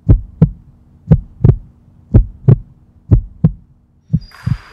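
Heartbeat sound effect: five lub-dub double beats, about one a second, over a steady low hum, the last one softer.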